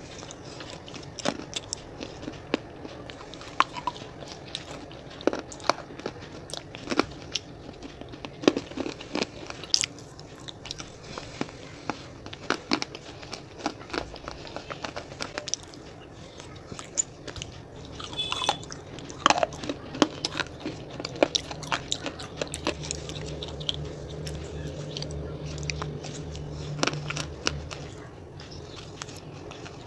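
Close-miked wet chewing and biting of soft stewed meat eaten by hand, full of irregular mouth clicks and smacks. A low steady hum runs under the chewing for several seconds near the end.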